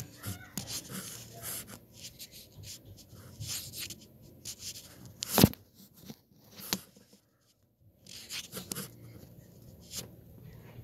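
Rustling and shuffling of someone moving about inside a closet, with scattered small clicks and one sharp knock about five seconds in.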